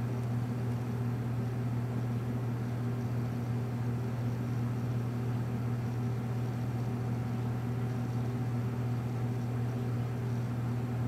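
HP DV6000 laptop's cooling fan running steadily: an even low hum with a few fainter steady tones above it.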